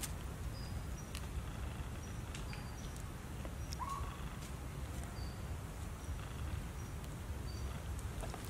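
Outdoor ambience: a steady low rumble with light scattered clicks, and birds giving short high chirps every second or so, with one short rising call about four seconds in.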